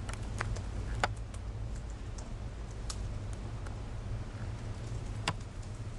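Scattered keystrokes and clicks on an Apple laptop keyboard, a handful of separate taps with the sharpest about five seconds in, over a steady low hum.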